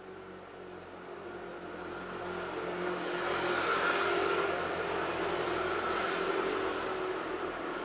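A motor vehicle running close by, its engine and tyre noise growing louder over the first four seconds and then holding steady.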